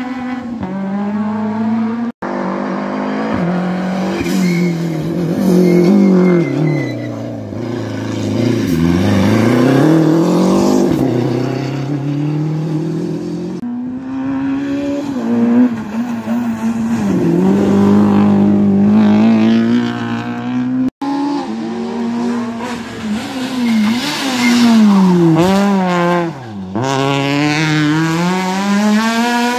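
Rally car engines revving hard through tight hairpins, the pitch rising and falling again and again with throttle and gear changes. Several cars pass one after another, and the sound breaks off abruptly where one car's clip gives way to the next.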